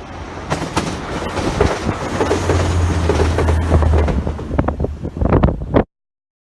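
A train passing, with a steady low rumbling hum under irregular clattering knocks from the wheels on the rails; the sound cuts off suddenly near the end.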